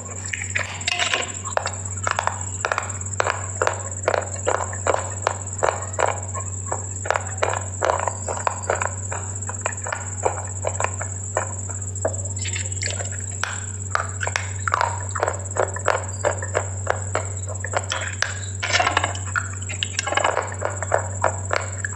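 Close-miked chewing of something hard and brittle: sharp crunches about three a second, pausing briefly twice, over a steady low electrical hum and a faint high whine.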